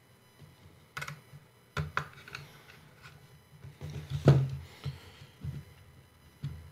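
Scattered light clicks and knocks of a small screwdriver and fingers working the plastic arm of a Hubsan Zino 2 Plus drone into its hinge: a click about a second in, two more near two seconds, and a cluster a little past four seconds with the loudest knock.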